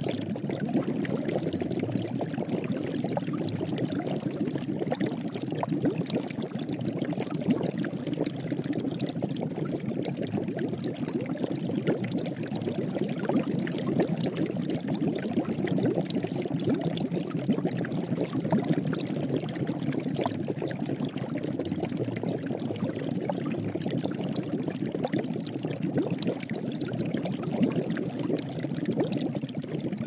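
Water at a hard rolling boil in a witch's cauldron, bubbling steadily with a deep, dense gurgle and many small pops.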